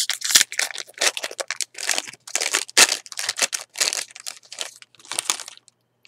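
Foil wrapper of a Topps baseball card pack crackling and crinkling as it is opened and crumpled in the hands. The crackles come in an irregular run and stop about five and a half seconds in.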